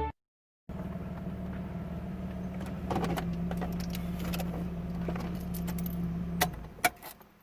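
Jeep Cherokee's 4.0L engine idling steadily, then shut off about six and a half seconds in, followed by a few clicks and a jingle of keys.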